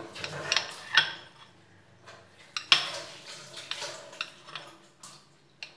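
Kitchen knife cutting through a soft folded crepe parcel, its blade tapping and scraping against the plate in a string of sharp clicks, the loudest about a second in and near three seconds.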